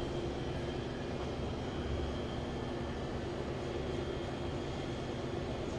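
Steady mechanical hum of building machinery, with a few constant tones held over an even low drone.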